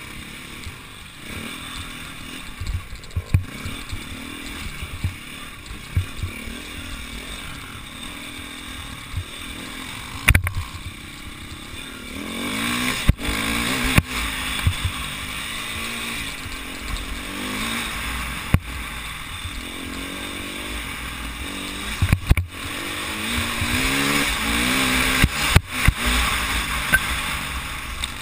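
Enduro motorcycle engine heard from the rider's own bike, revving up and down as it is ridden over a rough dirt trail. It gets louder about halfway through, with sharp knocks and thumps from the bumpy ground.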